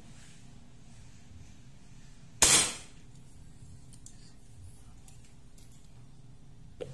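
Upgraded VSR-10 spring-powered bolt-action airsoft sniper rifle firing a single shot through a chronograph, one sharp report about two and a half seconds in, the 0.20 g BB clocking about 698 fps. A light click follows near the end.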